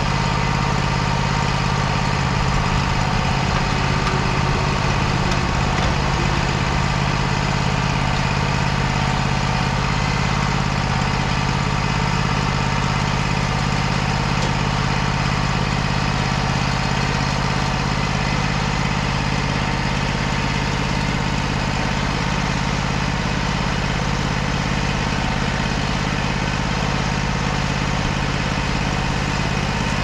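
Wood-Mizer LT35 HD portable bandsaw sawmill's engine idling steadily.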